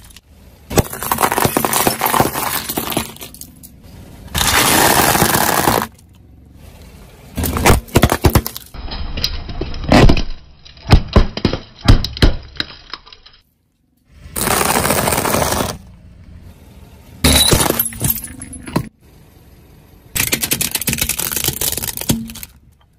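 A car tyre crushing plastic toy cars: several separate bursts of cracking and crunching as the plastic breaks apart, with a run of sharp snaps in the middle and short quiet gaps between the takes.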